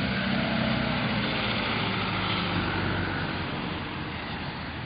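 A steady mechanical hum with a noisy rush over it, easing off a little near the end.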